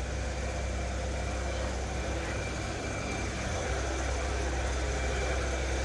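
Steady low machinery hum with a faint high whine held throughout, the background running of factory plant such as ventilation or a compressor.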